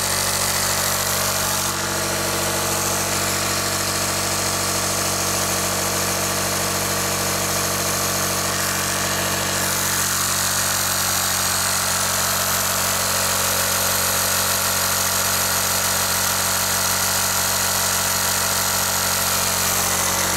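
Bravo BTP 12 Digital electric two-stage boat pump running steadily, still inflating an inflatable PVC boat's chamber.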